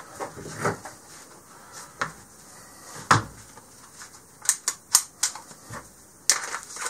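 Irregular sharp clicks and knocks of a pistol and a 3D-printed magazine-well vise block being handled and switched over, with a quick run of several clicks about two-thirds of the way through.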